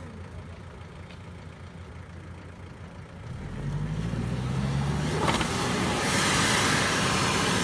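Toyota Land Cruiser Prado 4x4 engine running low, then revving hard from about three seconds in as it pulls up a steep mud bank under load. Its tyres spin and throw up dirt, and the sound grows loud near the end.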